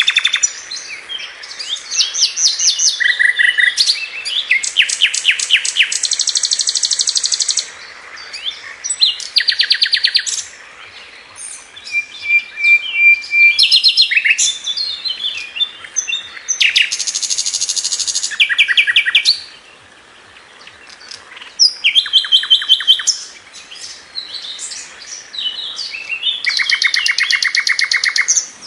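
Nightingale singing a varied run of phrases, many made of rapidly repeated notes and fast trills, with a held whistle about twelve seconds in and short pauses between phrases.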